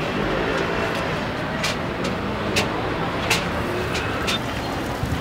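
Steady street noise, broken by four short, sharp metallic clinks of a cook's utensil at a street-side dosa griddle.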